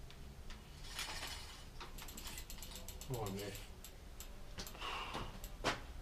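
Bicycle rear freewheel ratchet clicking in a quick, even run as the rear wheel is turned, among scattered clicks and knocks of handling, with one sharp knock near the end.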